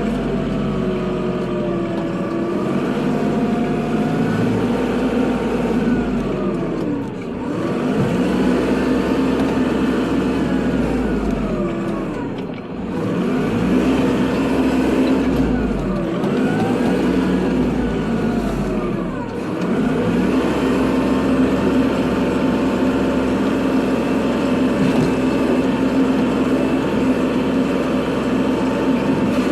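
Kubota tractor's diesel engine running under a snow-clearing load, its revs sagging and recovering several times, then holding steady for the last ten seconds or so.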